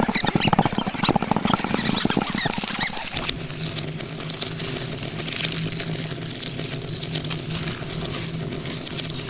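Sound-design soundtrack of a wall-painted stop-motion animation. For about three seconds there is rapid clicking with short squeaky chirps, then a steady low hum with a faint hiss.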